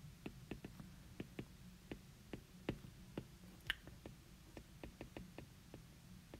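Stylus tip tapping and clicking on a tablet's glass screen during handwriting: faint, irregular clicks, a few a second.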